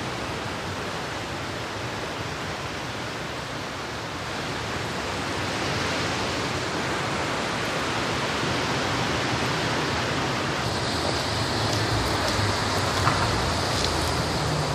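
Steady rushing outdoor background noise, an even hiss with no voices, growing a little louder about four seconds in.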